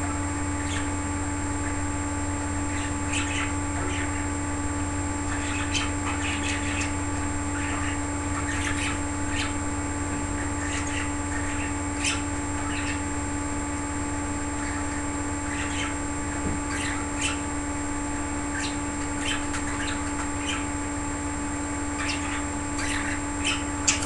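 Pet budgerigars chirping in short, scattered calls, over a steady low hum.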